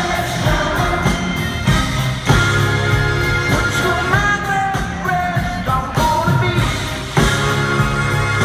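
Live rock band playing, with drums, bass, guitars and keyboards under lead and backing vocals.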